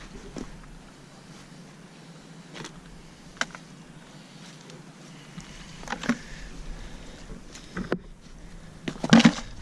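Scattered footsteps and knocks on shoreline rocks and gravel over a steady low background noise, with the loudest cluster of knocks near the end.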